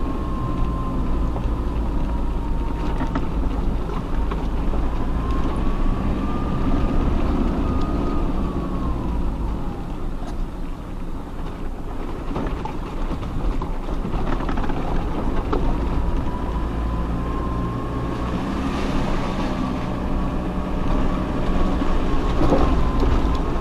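Off-road 4x4 vehicle driving, its engine running with a steady low rumble and a thin whine that slowly rises and falls in pitch. A few short knocks come in along the way.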